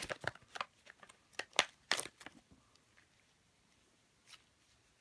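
Coins and plastic packaging being handled on a table: a quick run of small clicks and crinkles over the first two and a half seconds, then one soft click near the end.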